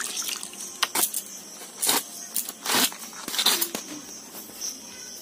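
Knife cutting a whole pineapple in half, several short crunching strokes as the blade goes through the tough rind and fibrous flesh.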